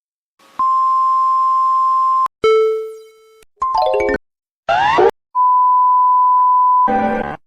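A run of synthetic emergency-alert tones. A steady electronic beep lasts under two seconds, then comes a ringing ding that fades, a few short clipped tones and a quick rising sweep. A second steady beep of about a second and a half follows, and a short harsh buzz ends the run.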